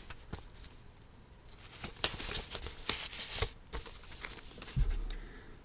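Card and paper record sleeves being handled: rustling and sliding with scattered light clicks, and a dull bump near the end.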